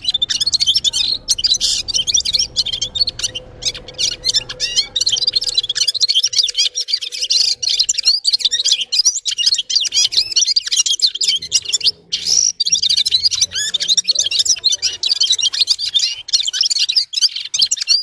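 Red-fronted serin singing a long, fast, high twittering song, with a short break about twelve seconds in.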